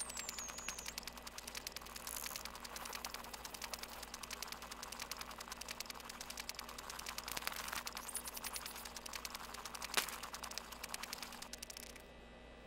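A rapid, steady train of mechanical clicks, like a clattering typewriter or ratchet mechanism, that cuts off shortly before the end. A brief high whistle falls in pitch at the very start, and one sharper, louder click comes about ten seconds in.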